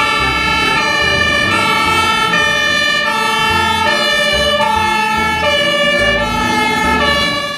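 Fire engine siren sounding a two-tone hi-lo call, switching between a higher and a lower note every second or so.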